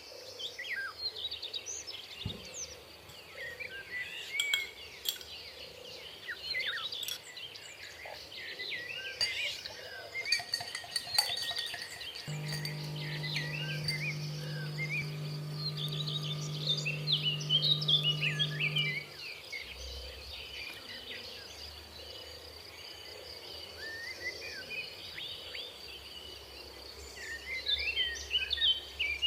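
Many small birds chirping and twittering, with a few light glass-and-metal clinks. About twelve seconds in, a small electric motor starts and hums steadily for about seven seconds, then stops.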